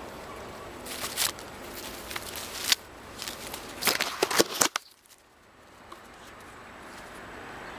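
Close rustling and crackling of olive leaves and twigs, with a run of sharp scratches and clicks through the middle, over a steady background hiss. The sounds drop away suddenly a little after the middle.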